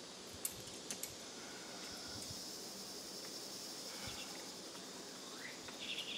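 Faint outdoor ambience of insects buzzing in a steady high band through the middle seconds, with a few light metallic clicks in the first second from climbing gear (carabiners and quickdraws) on the harness, and a short chirping call near the end.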